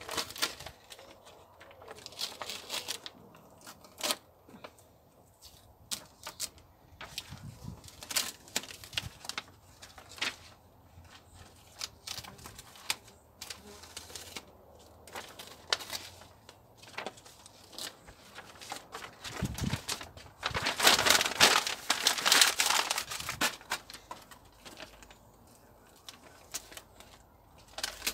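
Masking tape and newspaper being peeled off a car's wing: paper crinkling and tape tearing in short bursts of crackle, with a louder spell of rustling paper about three quarters of the way through.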